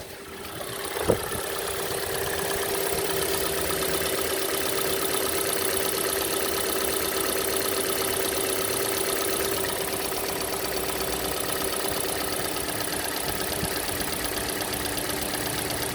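Hyundai/Kia G4NA 2.0-litre four-cylinder engine idling cold, with a fine rapid ticking over the steady running that the owner suspects is the hydraulic lifters, though he also considers the EVAP purge valve. It grows louder over the first second or two, with a single sharp click about a second in.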